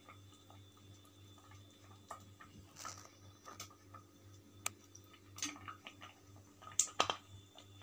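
Faint, scattered soft wet plops and light clicks as small rasgullas (chenna balls) are squeezed of syrup and dropped one at a time into thickened rabdi (reduced milk) in a pan. A sharper click comes about seven seconds in.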